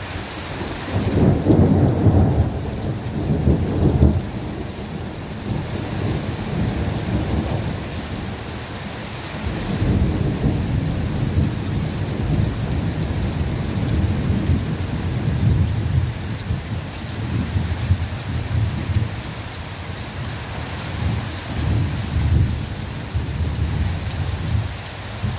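Steady rain with rolling thunder: a loud rumble starts about a second in and lasts a few seconds, and a longer, rolling rumble begins about ten seconds in.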